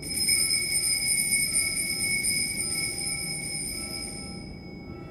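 Altar bell struck once at the elevation of the chalice, ringing out in a few clear high tones that fade away over about four seconds.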